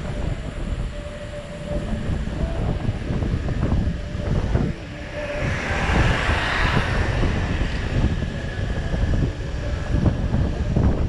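Wind buffeting the microphone with steady road rumble while riding a bicycle. A hiss swells and fades about halfway through.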